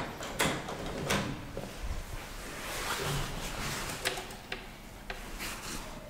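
Manual doors of a 1964 ASEA-Graham traction elevator being opened by hand: the metal inner car doors are pushed aside, then the hinged landing door swings open. Sharp clicks and knocks, with a stretch of rubbing, sliding metal in between.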